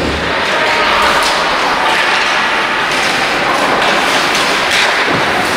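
Ice hockey play on a rink: skates scraping the ice in a steady hiss, with several sharp knocks of sticks and puck.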